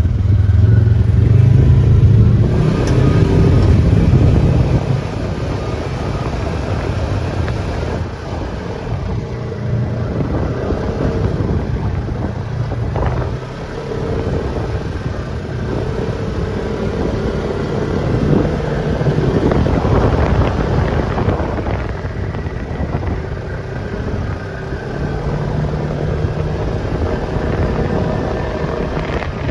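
An off-road vehicle's engine running over a trail, its revs rising and falling. It is loudest for the first five seconds, then runs on a little quieter.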